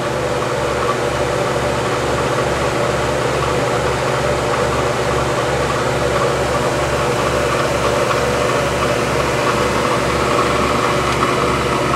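Steady hum of powered-up industrial machinery, with several level tones and a regular low throb pulsing a few times a second.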